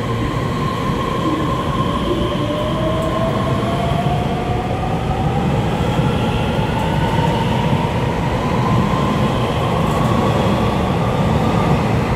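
Taiwan Railways EMU3000 electric multiple unit pulling away and gathering speed, its traction motors giving a whine that rises slowly in pitch over a steady rumble of wheels on rail.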